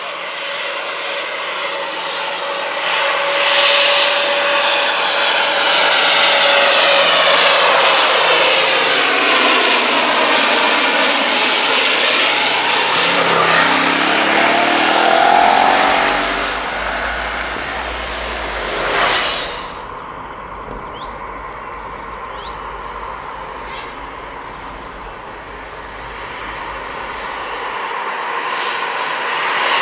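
Fokker 50 turboprop airliner passing low overhead on landing approach, its propeller and engine drone swelling and falling in pitch as it goes by, then fading. In the quieter stretch afterwards birds chirp, and near the end the sound of a Boeing 737-800 jet on approach grows louder.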